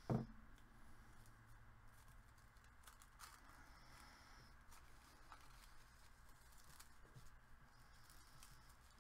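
One short knock as a small wooden-handled ink blending tool is set down on the craft table, then faint rustling and light ticks of paper being handled and pressed down.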